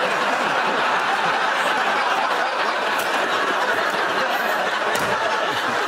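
Studio audience laughing, a loud, steady wave of many people's laughter that holds throughout.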